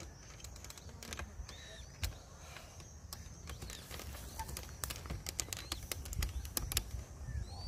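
Camera handling in waterside plants: many sharp clicks over a low rumble, with a few faint high peeps from Eurasian coot chicks.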